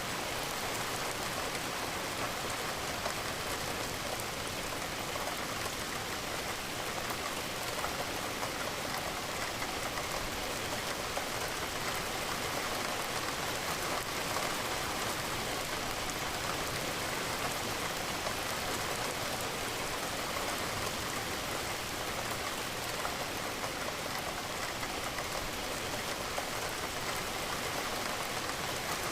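Steady rain falling against a window pane: an even hiss of drops that never lets up.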